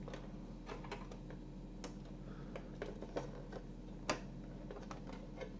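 Light plastic clicks and taps as a tinted clear-plastic roof panel is pressed and worked into a model car's plastic roof frame, the panel refusing to seat. The clicks come irregularly, the sharpest about four seconds in.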